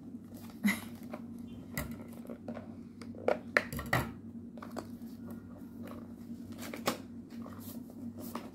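A cardboard gimbal box being handled and opened: scattered clicks, taps and knocks of the box flaps and packaging, with a steady low hum underneath.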